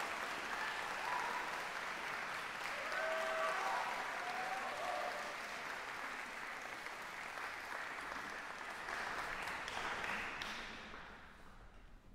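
Audience applauding in a concert hall, the clapping dying away about a second before the end.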